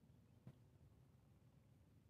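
Near silence: a faint low background hum, with one short soft knock about half a second in.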